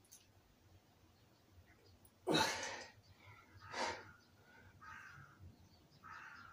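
A man breathing hard from the effort of dumbbell curls: a loud, forceful exhalation a little over two seconds in, a second shorter one about a second and a half later, then several softer breaths.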